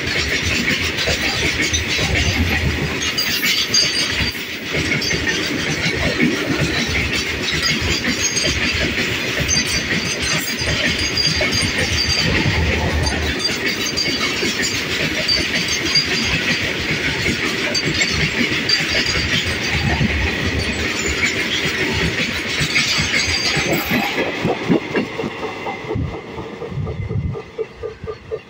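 Loaded coal freight wagons rolling past close by, their wheels clattering steadily over the rail joints. Near the end the noise fades away as the last wagon passes and the train recedes.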